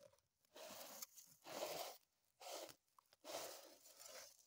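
Cardboard sheet carrying a pile of metal millings on a strong magnet being shifted, giving four short bursts of scraping and rustling with quiet gaps between them.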